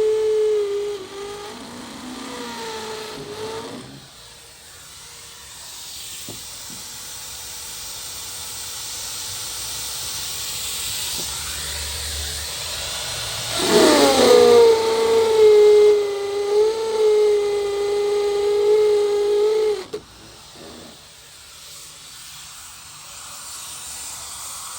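A small electric motor whines at a steady pitch, briefly at the start and again for about six seconds in the second half, where it settles after a downward glide and then cuts off suddenly. A rising hiss fills the stretch in between.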